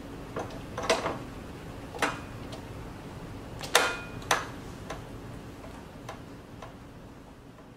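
Irregular metal clicks and knocks of optical rail carriers and component holders being slid and set in place on an optical bench rail, the loudest just under four seconds in with a short metallic ring.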